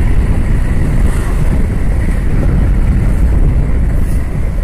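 Motorcycle running along at low speed with wind buffeting the microphone: a loud, steady low rumble.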